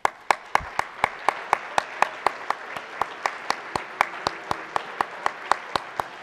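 An audience applauding, with one clapper standing out above the rest in loud, even claps at about four a second.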